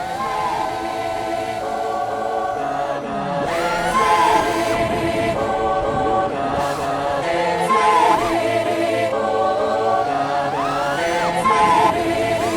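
Background music: choir-like voices holding sustained chords, with sliding vocal lines over them.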